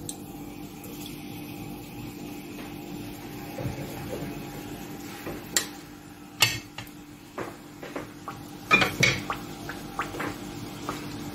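An apple turnover made from wafer sheets frying in hot oil in a non-stick pan: a faint, steady sizzle over a constant hum. A few sharp clicks and knocks against the pan come through, loudest about six and nine seconds in.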